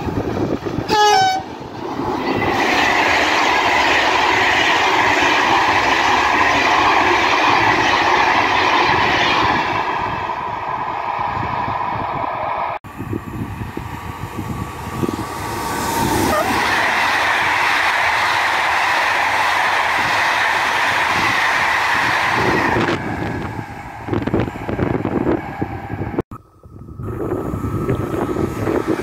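BB 7200 electric locomotives hauling Corail coaches go by at speed, with a long steady rush of wheel and rail noise. A short horn blast sounds about a second in.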